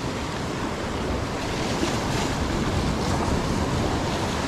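Rough sea surf breaking and washing over shoreline rocks in a steady rush, with wind buffeting the microphone.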